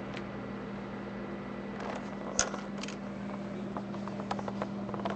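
Handling noise from a webcam being moved and turned, over a steady low hum: one sharp knock about two and a half seconds in, then a run of light clicks and taps near the end.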